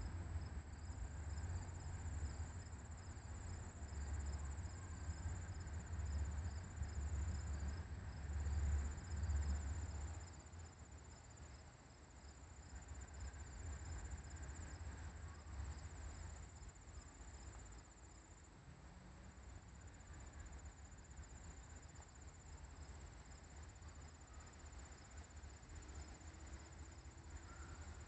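Insects trilling steadily at a high pitch, with a second, pulsing chirp beneath the trill. A low rumble is loudest for about the first ten seconds, then fades.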